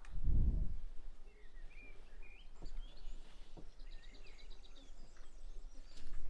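Small birds chirping, with a quick run of rapid high notes a little past the middle. At the start, a short low thump as dough is pushed down in a steel bowl.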